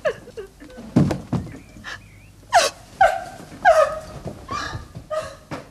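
A woman sobbing in short, falling cries, five in a row in the second half, after a thump about a second in.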